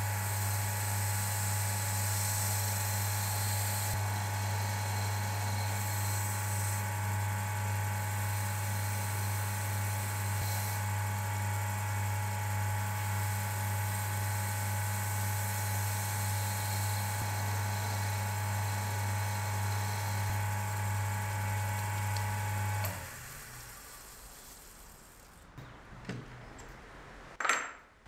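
Small benchtop lathe motor running steadily, a low hum with a thin whine and hiss, while the spinning wooden handle is hand-sanded with sandpaper. The motor stops about 23 seconds in, and a few sharp clicks follow near the end.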